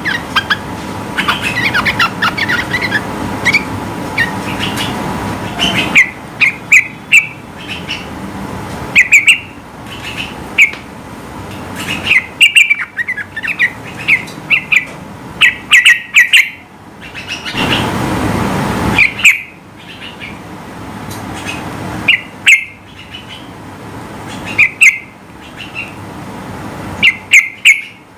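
Yellow-vented bulbul singing in short, loud, bubbling phrases, repeated in clusters every second or so. A rushing background noise runs under the song and swells briefly past the middle.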